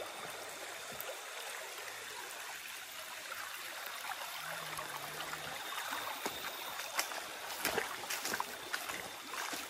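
Small river flowing, a steady trickling rush of water, with a few light clicks near the end.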